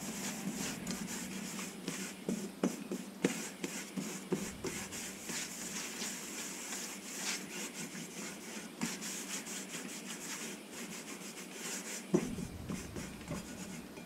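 A folded paper shop towel rubbing and scrubbing around the inside of a hot Lodge cast iron skillet, a continuous scratchy swishing made of quick repeated strokes as seasoning oil is spread thin. A few light knocks come in between, the loudest near the end.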